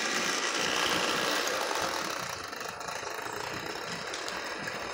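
Lionel Commodore Vanderbilt toy train running on three-rail tinplate track: the locomotive's electric motor whirring and the wheels and freight cars rattling along the rails. It is loudest in the first two seconds as the locomotive goes by, then steadier and a little quieter as the cars pass.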